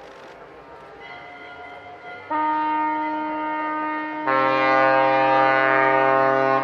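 Ship horns sounding during a fireboat's water salute: after a quieter start, one horn blast begins about two seconds in, and a second, deeper horn joins about four seconds in, the two held together as a steady chord.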